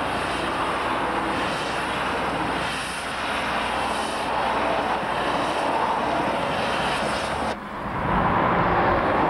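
Road traffic noise: cars driving past on a highway, a steady rush of engine and tyre sound. About seven and a half seconds in it cuts to a louder, closer pass of cars.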